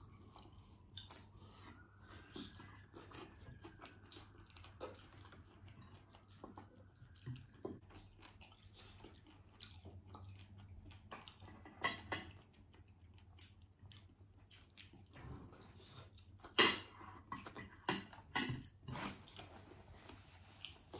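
Close-miked eating sounds: chewing and mouth clicks while eating fried fish and rice by hand, with scattered sharp taps and clinks of plates. The loudest tap comes about 17 seconds in.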